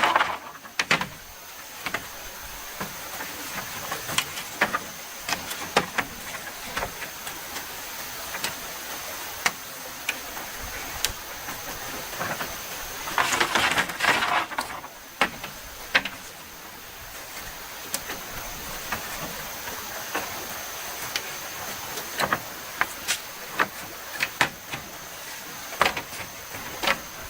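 Irregular sharp knocks and taps over a steady hiss and a thin, steady high tone, with a short rustling scrape about thirteen seconds in.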